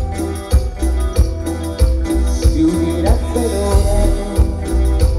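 Live Latin dance band playing an instrumental passage of a song, with strong bass and a steady, evenly repeating percussion beat.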